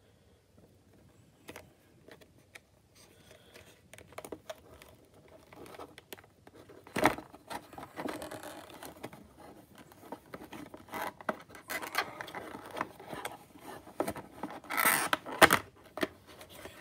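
Clear plastic packaging of a model airplane being handled and pulled apart: the stiff plastic clicks, scrapes and crackles irregularly. It is sparse at first and grows busier, with the sharpest crackles about seven seconds in and again near the end.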